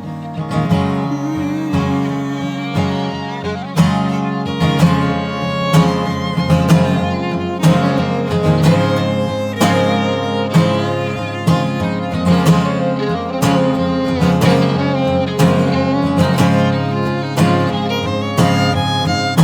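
Instrumental break of an acoustic folk song: a strummed acoustic guitar keeps a steady beat of about one strum a second, with a fiddle line played over it.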